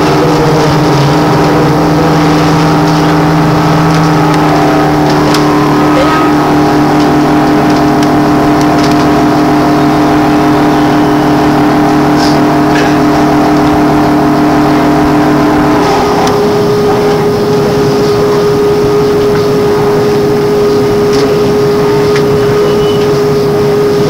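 MAN articulated trolleybus heard from inside while running, its electric drive giving a steady whine made of several tones at once. About sixteen seconds in, most of the tones drop away, leaving a single steady hum.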